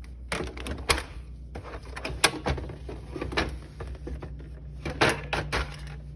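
Samsung refrigerator's plastic in-door ice bucket being worked loose and pulled out: a series of irregular plastic clicks and knocks, the sharpest about a second, two seconds and five seconds in.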